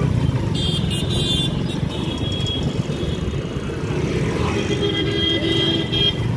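Busy city traffic heard from a moving two-wheeler: steady engine and road rumble, with vehicle horns sounding about a second in and again near the end.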